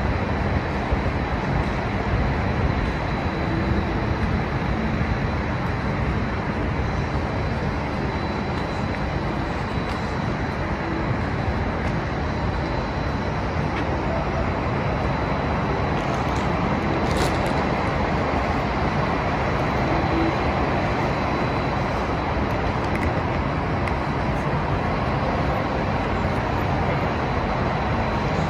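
Steady outdoor city ambience: a continuous rumble of road traffic with no distinct events.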